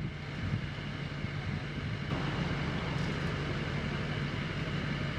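Tractor engine running steadily at a constant speed, with a hiss joining about two seconds in.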